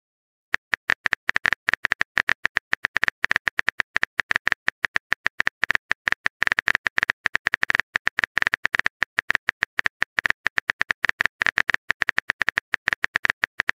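Rapid, evenly paced keyboard-typing clicks from a texting app's typing sound effect, about eight to ten a second, each with a bright ring. They start about half a second in.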